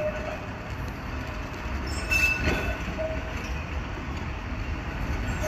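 Blackpool double-deck electric tram approaching on its rails, a steady low rumble with a faint hum. A brief high tone sounds about two seconds in.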